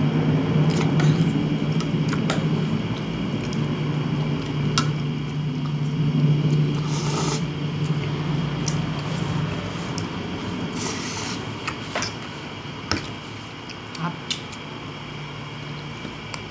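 A person slurping and chewing spaghetti, with a few light clicks of a fork near the end, over a steady low hum that fades somewhat about two-thirds of the way through.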